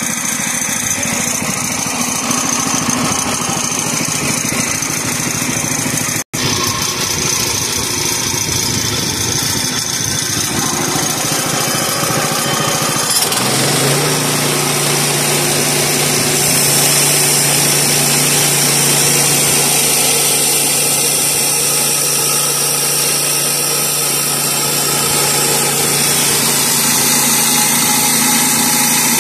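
Kohler 7 hp single-cylinder engine on a Woodland Mills HM122 portable bandsaw mill running steadily while the band blade saws through a sycamore cant. The sound drops out for an instant about six seconds in. About halfway through, the engine's even hum becomes clearer, with more high hiss soon after.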